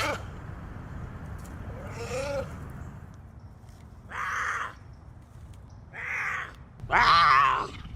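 An animal calling: four short, harsh, wavering calls at intervals, the last one the loudest and longest.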